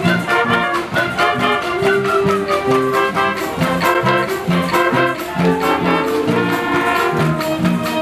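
Concert band playing an upbeat tune: saxophones and horns carry the melody over an electric bass line and a steady beat.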